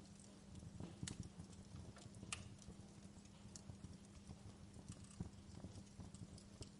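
Fireplace fire crackling quietly: scattered, irregular pops and snaps over a low, steady rumble, with a couple of sharper snaps about one and two seconds in.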